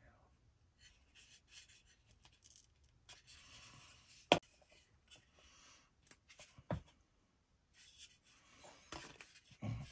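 Faint scraping and rubbing of wooden toy-plane parts being glued and fitted by hand. A sharp knock comes about four seconds in and a smaller one near seven seconds.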